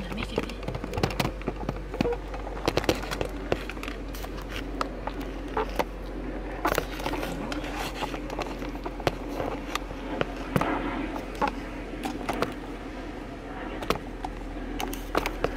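Irregular rustling, scraping and clicking of things being handled inside a car, the camera itself moving about among them.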